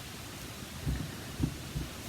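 A few soft, dull bumps and light rustling from hands handling a stamping platform and card stock, over faint steady hiss.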